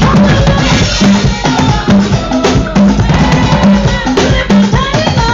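Loud music with a drum kit and a repeating bass line, and a sung or melodic line over it.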